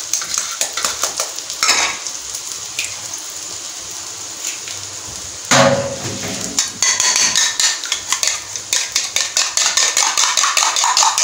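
A metal spoon taps an egg open over a small bowl, then beats the eggs in the bowl: quick clinking of spoon against bowl, denser and more regular in the second half.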